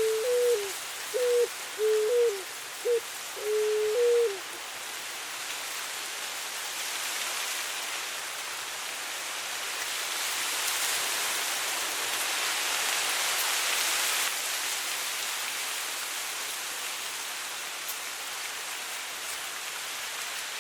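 A West Peruvian dove (cuculí) coos a phrase of several short hooting notes, the last one longer and falling away, over the first four seconds or so. Under it, steady wind rustles through dry grass, swelling in the middle and then easing.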